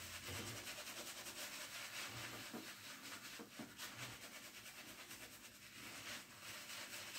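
Badger shaving brush scrubbing lather onto a face, a faint, fast, continuous bristly rubbing.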